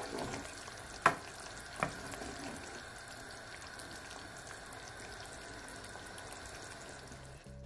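Curry chicken wings simmering in gravy in a pan with a steady sizzle, while a wooden spoon stirs them and knocks against the pan three times in the first two seconds.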